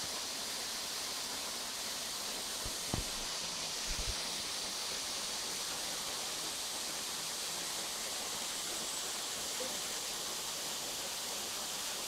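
Steady hiss of water falling down a waterfall. A few soft low thumps come around three to four seconds in.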